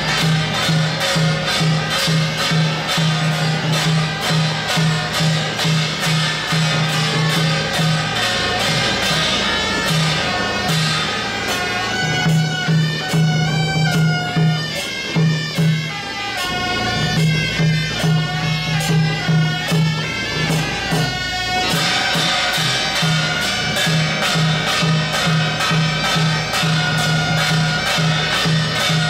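Taiwanese temple-procession music: a suona (Chinese shawm) melody over fast, steady clashing of cymbals and gongs. For several seconds in the middle the cymbal clashing thins out and the wavering suona line stands out, before the full percussion returns.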